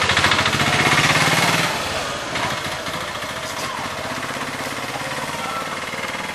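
Small engine running with a rapid, even pulsing, loudest for about the first two seconds and then steadier and a little quieter.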